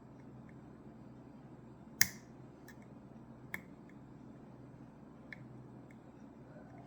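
Small metallic clicks of a lock pick and tension wrench working the pins of a Ruko 600 pin-tumbler lock with barrel drivers. One sharp, loud click comes about two seconds in, with a few fainter clicks after it, over a low steady hum.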